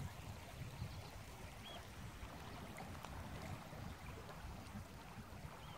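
Shallow river running over a gravel bed, a steady watery hiss, with wind rumbling on the microphone.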